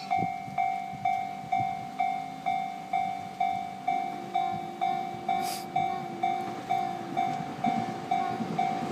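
Japanese railway level-crossing warning bell ringing, about two strikes a second, each strike quickly fading: the crossing is signalling that a train is coming.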